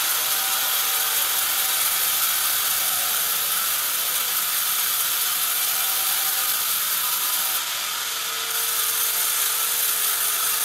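Large band saw headrig running, its blade sawing through a squared timber on the log carriage: a steady high hiss over the machine's hum. The hiss dips for about a second near the end.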